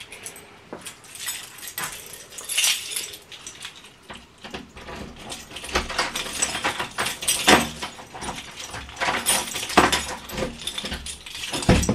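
Irregular rustling, clicks and knocks of close handling, with low thumps from about four seconds in.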